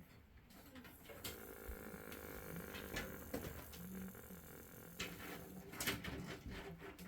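Dry rustling with a rattling buzz and several sharp clicks and knocks: a corn snake vibrating its tail against the dry bedding in its enclosure, a sound easily mistaken for a rattlesnake's rattle.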